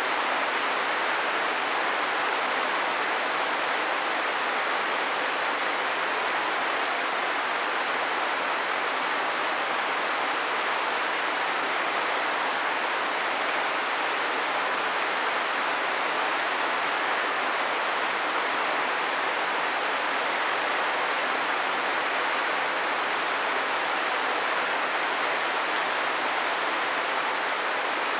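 Steady rain falling: an even hiss that stays the same throughout.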